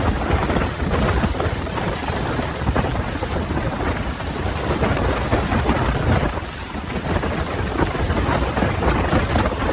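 Storm noise: heavy rain with a low, continuous rumble.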